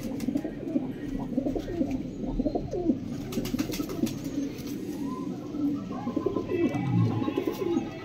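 Domestic pigeons cooing continuously, several low warbling coos overlapping, with a short cluster of sharp clicks about three seconds in.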